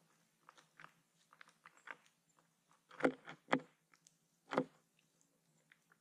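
White-throated Sparrow and Fox Sparrow foraging on the ground in dry leaves and seed close to the microphone. Their pecking and scratching make scattered light clicks and crunches, with three louder ones in the middle.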